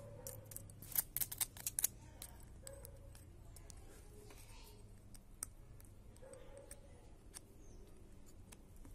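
Precision screwdriver tip clicking and scraping against a phone's frame and small internal parts as they are pried loose: a quick cluster of sharp clicks about a second in, then a few scattered faint ticks.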